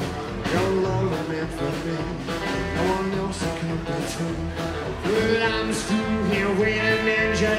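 Live rockabilly band playing: a lead voice singing over acoustic and electric guitars, upright double bass and drums.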